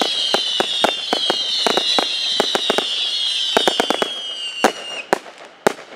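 'Satans Beast' 200-shot single-ignition-barrage firework cake firing its final shots: rapid bangs, about four or five a second, over a high tone that slowly falls in pitch. After about four seconds the shots thin out to a few single bangs as the cake burns out.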